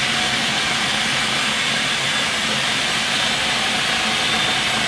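Philips food processor running steadily, its blade chopping a mix of onion, garlic and herbs.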